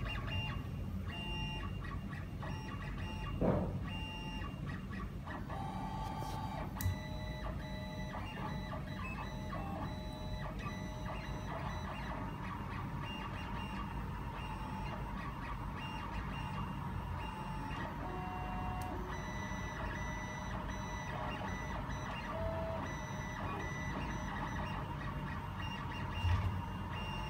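Open-frame FDM 3D printer running a print: its stepper motors whine in steady tones that jump from pitch to pitch as the print head and bed move. A few short knocks stand out, about 3.5 s in, about 7 s in and near the end.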